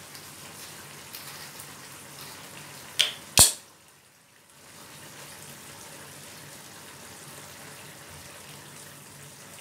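Squid adobo simmering in a frying pan over a gas flame, a steady bubbling hiss, as soy sauce is poured into it from a bottle. Two sharp knocks a little after three seconds in are the loudest sounds, followed by a brief lull before the simmering hiss comes back.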